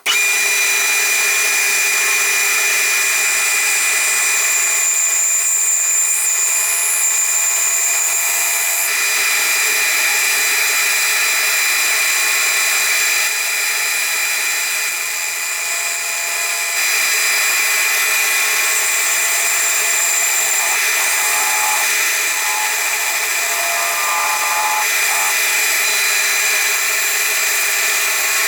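A lathe running steadily with a steady machine whine while it turns a handle from very dense hardwood, the tool cutting the spinning wood.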